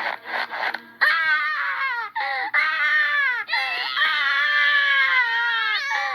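Newborn baby crying, voice-acted for a cartoon. A few short sobs come in the first second, then long wailing cries that fall in pitch.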